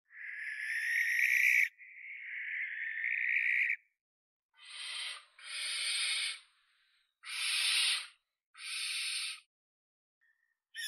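Owl calling: two long, harsh calls one straight after the other, each growing louder, then four shorter, noisier calls with short gaps between them.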